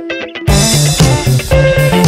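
Background guitar music; after a brief thinned-out break, a bass line and beat come back in about half a second in.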